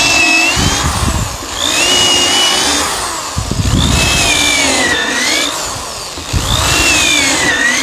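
Corded electric drill with a quarter-inch bit boring vent holes into eastern red cedar, the bottom of a birdhouse. The drill runs in three stretches with brief dips between them, and its motor whine rises and falls in pitch.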